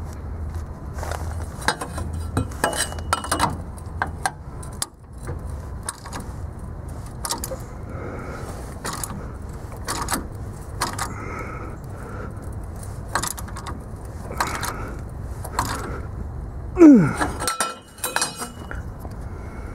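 Scattered metal clicks and clinks from a socket and ratchet turning the forcing screw of a tie rod end puller on a seized steering joint that is very difficult to get off. A low steady hum runs underneath, and near the end comes one loud, short sound falling in pitch.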